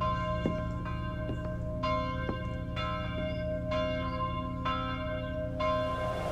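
A bell struck seven times, about once a second, each stroke ringing on into the next.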